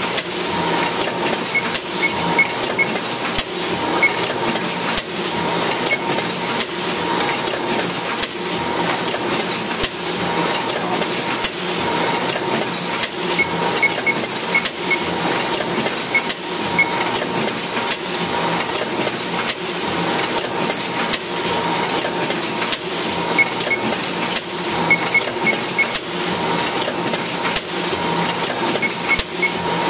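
Duplo 1060 twin-tower paper collator running, feeding sheets out onto its stacking tray: a steady mechanical whir with regular sharp clicks and now and then a short run of high chirps.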